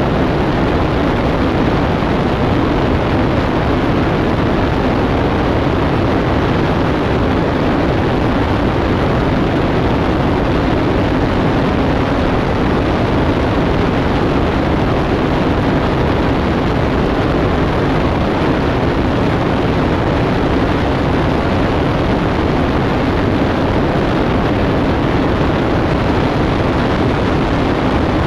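Steady rush of airflow and the drone of a Columbia 400's turbocharged six-cylinder engine and propeller in cruise flight. The sound is picked up by a camera mounted outside the airframe, so wind on the microphone is heavy.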